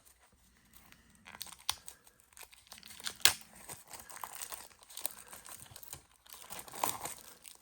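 Wrapper of a sealed 1988 NWA Wonderama wrestling card pack being torn open and crinkled, with scattered sharp crackles. The loudest crackle comes about three seconds in.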